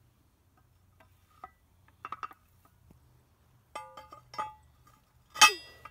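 An 11-inch AR500 steel target plate knocking against its steel hanger as it is hung on a wooden post: a few light metal clinks with short rings, then near the end one louder clang that rings briefly.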